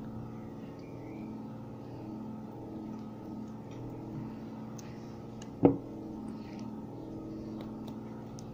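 Steady low machine hum, with one sharp knock a little past the middle.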